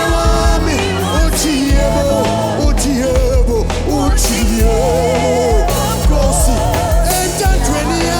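Gospel worship music: a band with bass and drums under a singer's drawn-out, wavering vocal line without clear words.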